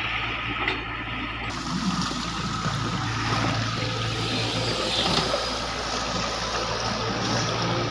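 Hitachi hydraulic excavator's diesel engine running steadily with a constant low hum, over the sound of shallow river water flowing around it.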